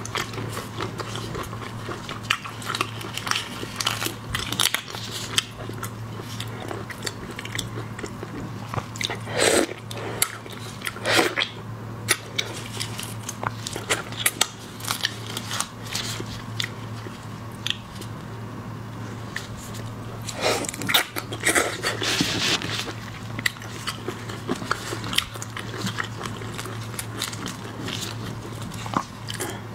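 Close-miked eating sounds of a person chewing raw sweet shrimp: wet mouth smacks and soft crunches at irregular intervals, over a steady low hum.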